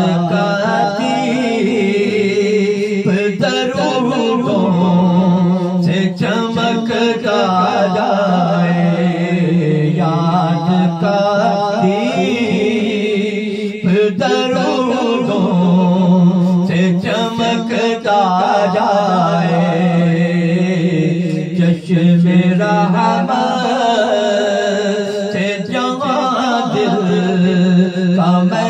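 A man's voice chanting a devotional Urdu naat in long, melodic phrases without a break.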